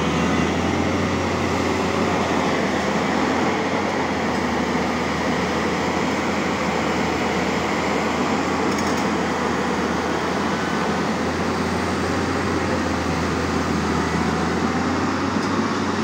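Tata Hitachi EX200LC excavator's diesel engine running steadily, with a low hum and an even mechanical noise.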